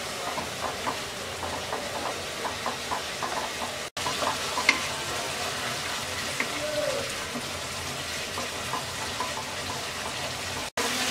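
Onion-and-spice masala sizzling and bubbling in a nonstick wok while a wooden spatula stirs and scrapes it, with short pops or scrapes two or three times a second. It is being fried down with a little water. The sound cuts out for an instant twice.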